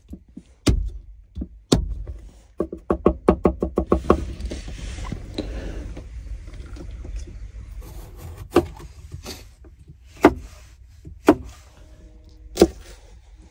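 Chef's knife on a wooden cutting board: two heavy knocks, then a quick run of chopping strokes mincing garlic, about eight or nine a second. A rough scraping follows, and then single knife strikes through a tomato onto the board.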